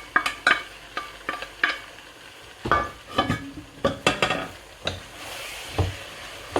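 A spoon stirring and knocking against a cooking pot as boiled noodles are tossed into fried vegetables, a quick run of clacks with a few heavier thuds. Sizzling from the hot oil rises about five seconds in.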